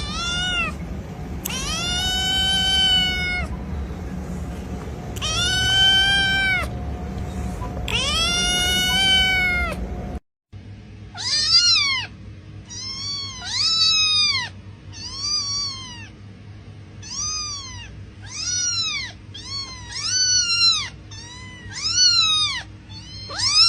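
Kittens meowing. Three long, drawn-out, high meows come first. After a short break, a quick string of many brief, high meows follows.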